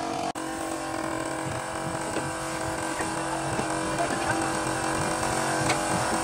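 A machine running steadily: a constant mechanical hum with a few faint ticks, broken once by a very short drop-out near the start.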